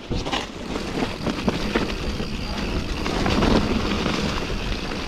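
Mountain bike riding over a rough trail: a steady rush of wind and tyre noise on the microphone, with frequent knocks and rattles from the bike.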